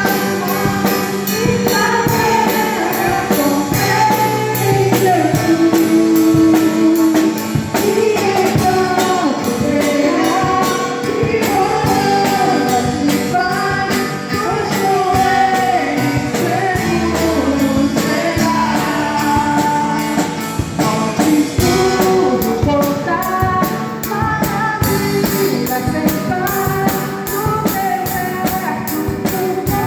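Worship group singing a gospel hymn with instrumental accompaniment over a steady percussion beat.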